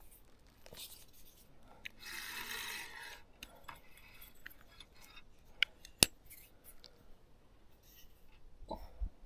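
Close handling of fishing tackle: a rustle lasting about a second, then scattered light clicks and taps, the sharpest two close together about six seconds in.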